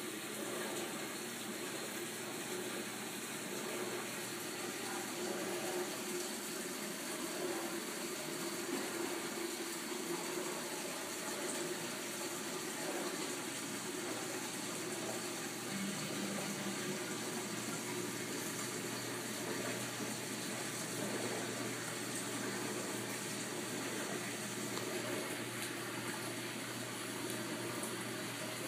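Water running and splashing steadily into a saltwater aquarium's sump from the tank's overflow drain, with a low steady hum in the background from about halfway through.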